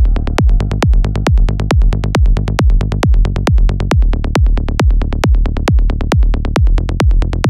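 Offbeat psytrance electronic dance music: a steady four-on-the-floor kick drum, a little more than two beats a second, with a pulsing bass between the kicks.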